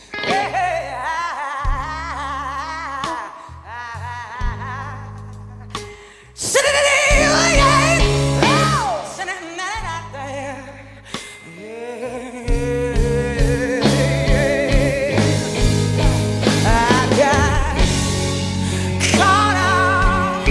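Slow blues song with a singer wailing a wordless vocal line with wide vibrato over a band's sustained bass and instruments. The band swells louder about six seconds in.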